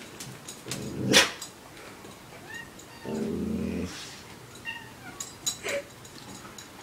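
A dog and a cat vocalizing at close quarters. There is a sharp, loud cry about a second in, then a low growl lasting under a second about three seconds in, and a few short high squeaks.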